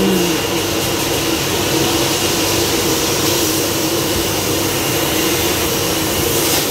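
Car-wash vacuum cleaner running steadily while a car's interior is cleaned: an even rushing drone with a steady low hum and a faint high whine.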